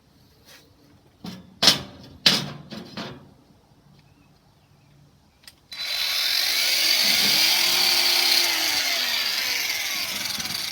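A few knocks of metal being handled, then a cordless angle grinder's cutoff wheel starts abruptly about halfway in and cuts into 1/4-inch steel angle iron for about six seconds: a loud, hissing grind whose pitch rises and falls as the load changes.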